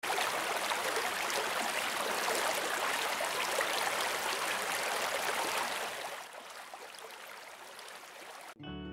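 Steady rush of stream water running over small cascades. It fades down about six seconds in and cuts off abruptly near the end, where music starts.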